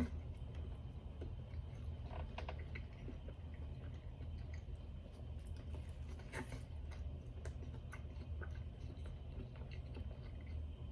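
A person chewing food, with a few short crunching or smacking clicks, over a steady low hum.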